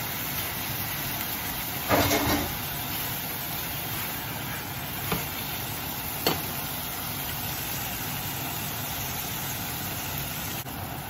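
Meat frying in hot oil in a pan: a steady sizzle that flares up loudly about two seconds in, with two short knocks a few seconds later.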